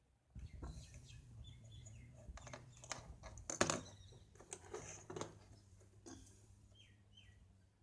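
Clicks, taps and light scraping of a small plastic torch and tools being handled during a repair, the loudest click about three and a half seconds in, over a steady low hum.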